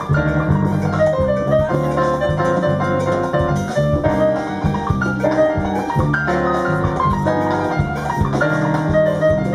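Live marimba orchestra playing a son: quick runs of struck marimba notes over keyboard and drums.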